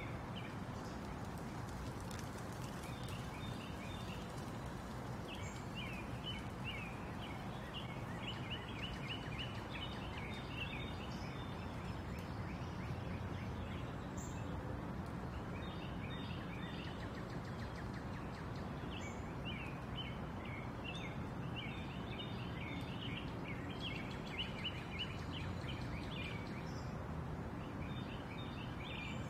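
Steady running noise of a pontoon boat under way on a lake, motor and water together, with repeated bursts of rapid, high-pitched chattering every few seconds.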